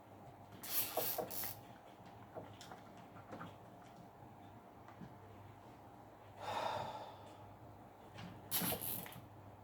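A person breathing out sharply three times, over a steady low hum.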